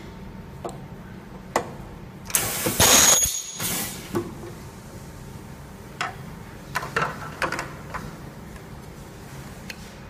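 HX-2018 ultrasonic welding machine running a weld cycle: a loud burst of hissing noise with a high steady whine in it, about a second long, a brief break, then a second, shorter burst. Scattered light clicks come before and after.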